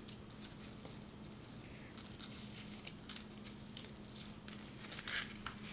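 Faint rustling and small scattered ticks of hands handling a ribbon hair bow, over a faint steady low hum.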